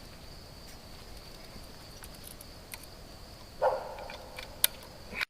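A steady high insect trill, likely crickets, with faint scattered ticks. About three and a half seconds in there is a brief louder rustle, and a sharp click follows about a second later.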